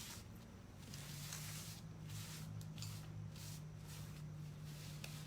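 Faint rustling and handling noises, a run of soft scrapes and a click at the start, as small craft materials such as artificial leaves are picked up and moved about. A steady low hum runs underneath.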